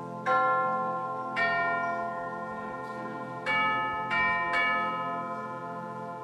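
Bell-like chime notes struck five times at an uneven, unhurried pace, each note ringing on and slowly fading, over a soft low chord held underneath.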